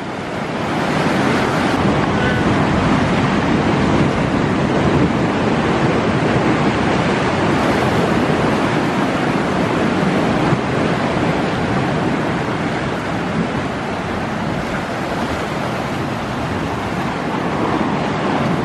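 Ocean surf breaking and churning against rocks: a steady, loud rushing that swells up over the first second or two.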